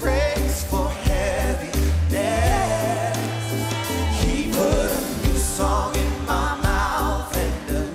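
Live gospel worship band playing on drum kit, bass guitar and keyboards, with a lead singer's wavering sung line over it.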